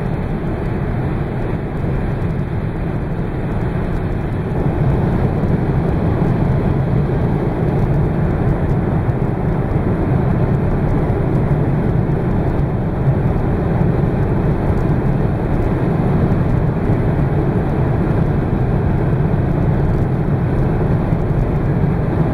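Inside the cabin of a BMW Z4 at high Autobahn speed: its engine runs steadily under wind and tyre noise, growing louder about four seconds in.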